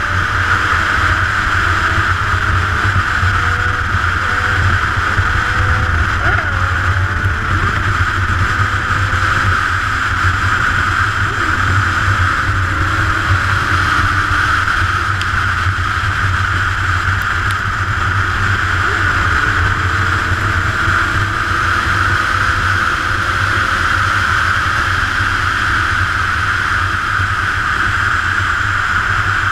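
Steady wind rush and road noise on a motorcycle-mounted camera at speed, with a motorcycle engine's faint hum underneath whose pitch climbs slowly now and then.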